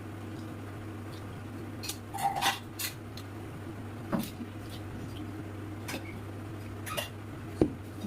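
Eating at a plate of rice and curries: scattered short clicks and scrapes of food and plate, a cluster about two seconds in and single ones later, the sharpest near the end, over a steady low hum.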